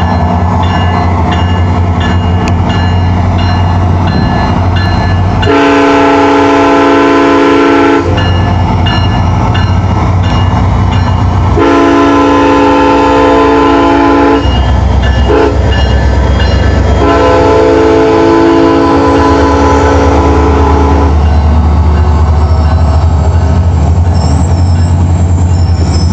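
SunRail diesel locomotive pulling out, its engine rumbling steadily while it sounds the multi-note air horn in the grade-crossing pattern: long, long, short, long, the last blast the longest. A level-crossing bell rings in the first few seconds.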